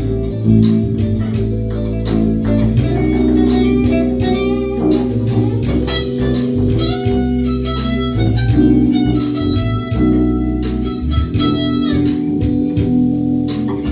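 Bass guitar being played continuously, a run of plucked notes over sustained low tones.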